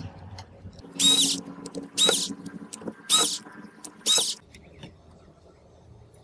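Screwdriver backing a mounting screw out of a cassette recorder's speaker frame: four short high squeaks about a second apart over a low steady hum, after a sharp click at the start.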